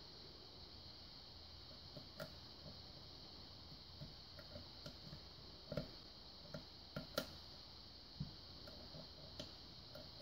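Faint, irregular clicks and taps of a lock pick working the pins of a five-pin Chris Ahrens pin-tumbler lock, with a few slightly louder clicks about six and seven seconds in.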